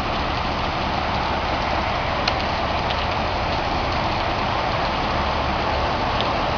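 Heavy rain pouring steadily, with one small click about two seconds in.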